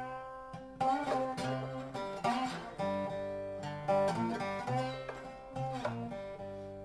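Dobro (resonator slide guitar) music: plucked notes that ring and fade, several sliding in pitch.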